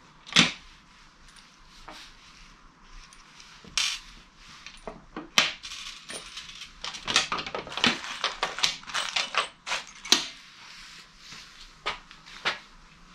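Metal bolts and washers clinking as they are handled and set down among other hardware: a scatter of sharp metallic clicks, with a busy run of them in the middle.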